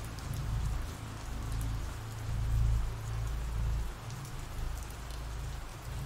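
Steady rain falling, with a spatter of small drops and a low rumble that swells and fades underneath.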